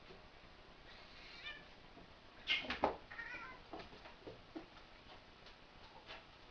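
Cats fighting, giving a few short yowls with a falling pitch. A loud, sharp burst of sound comes about two and a half seconds in.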